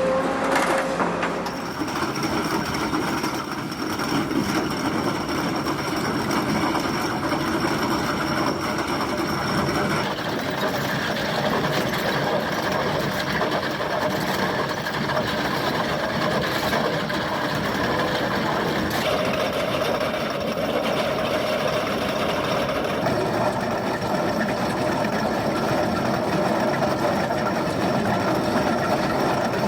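Excavator-mounted KEMROC EK chain cutter running, a steady rapid mechanical clatter with an engine beneath it. Its tone shifts abruptly a few times.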